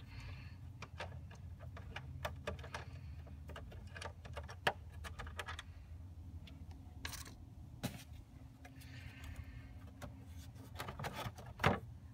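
Scattered clicks, taps and rattles of a T-handle hex key and hands working the bolts of a plastic engine cover, with a few sharper knocks later on. A steady low hum sits beneath: the BMW's inline-six engine idling.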